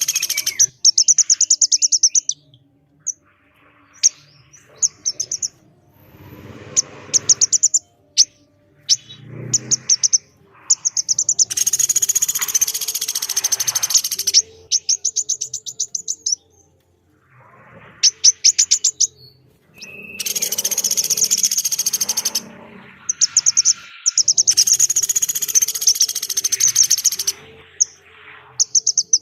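Bird calls from a masteran recording of a rice woodpecker (pelatuk beras) and a female korlap. The calls are rapid, high, rattling trills of many quick notes, some running two or three seconds, mixed with harsher calls and short pauses between bursts.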